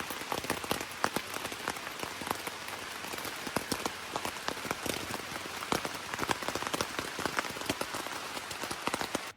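Rain falling steadily, with many sharp individual raindrop hits over a dense hiss.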